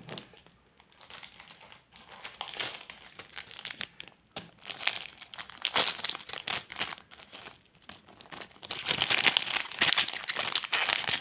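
Plastic wrapper of a Choki Choki chocolate snack pack crinkling as it is handled. Scattered crinkles at first, then steadier, louder crinkling for the last couple of seconds.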